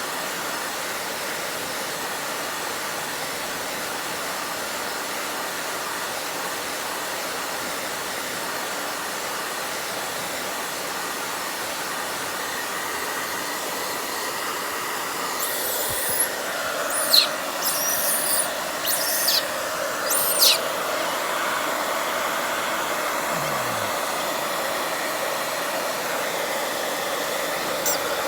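Hair dryer blowing steadily, its tone shifting about halfway through. Several short, sharp high-pitched sounds come over it in the second half.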